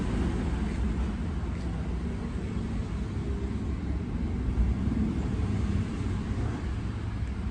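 Steady low rumble of background traffic noise, with no distinct sounds standing out.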